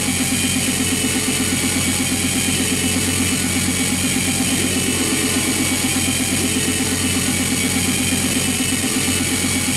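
Harsh noise-ambient electronics: a dense, steady wall of hiss over a low droning hum, pulsed by a fast, even throb, with faint wavering tones drifting above it.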